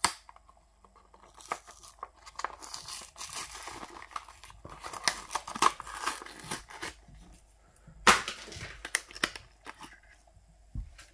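Diecast model car's clear plastic blister pack being torn from its cardboard backing card and crinkled, in irregular rustles, with a sharp snap at the start and a louder one about eight seconds in.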